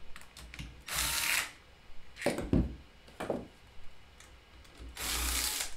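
Cordless impact driver running in two short bursts, spinning out the loosened bolts of a pit bike's engine clutch cover, with a few light knocks between as the bolts are handled.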